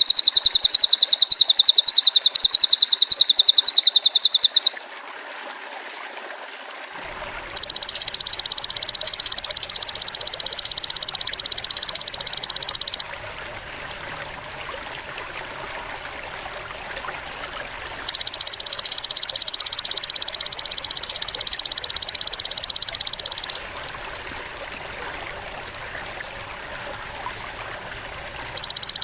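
Looped masteran track of cililin and belalang emas (golden grasshopper) calls. A loud, fast-pulsing high trill stops about five seconds in, then come three long, even, high buzzing trills of about five seconds each, with pauses between.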